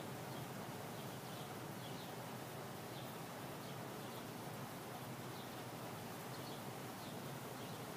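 Steady outdoor background hiss with faint, scattered bird chirps.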